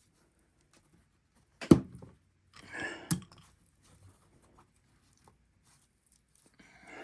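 Work-bench handling noises during a knife repair: one sharp knock about a second and a half in, then a brief scraping rustle ending in a click, and a softer rustle near the end.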